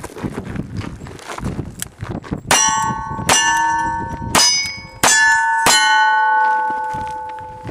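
Revolver shots at steel plate targets: five shots about a second apart, each followed by the clang of a steel plate ringing on for a second or more. There is a sharp knock right at the start.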